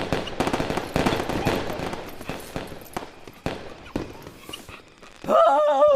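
Firework crackling: a rapid string of sharp pops that thins out and fades over several seconds. Near the end a voice breaks into a loud, wavering yell.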